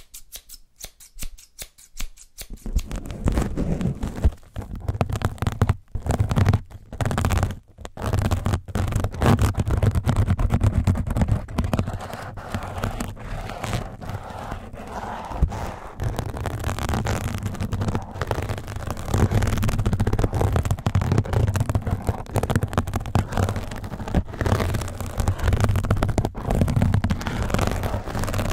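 A mesh scrub pad scrunched and rubbed directly on a microphone's grille: close, scratchy rubbing with a heavy low rumble, starting about two seconds in and going on with a few short breaks. Faint clicks come just before it.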